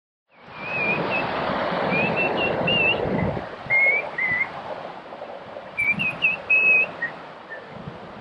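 Birds singing short, wavering whistled phrases in two bursts over a steady rush of river water and wind, fading in after a brief silence.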